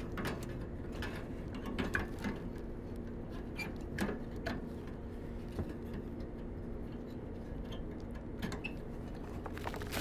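Light metallic clicks and taps as a new sheet-metal gas burner is handled and slotted into a rusty steel burner tray, with a steady low hum underneath.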